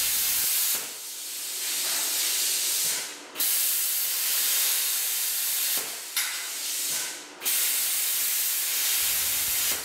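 MIG welder arc hissing and crackling as steel plate is welded, in several runs broken by short pauses where the arc stops and restarts.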